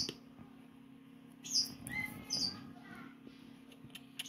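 Three-day-old Javan bush lark (branjangan) nestlings giving short, high begging chirps, a few in a row, each dropping in pitch.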